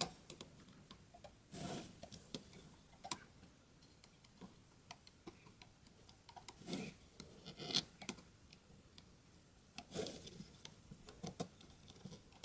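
Faint, irregular clicks and ticks of a metal-tipped hook tool catching and snapping rubber bands on a plastic Rainbow Loom's pins, with a few soft rubbing sounds.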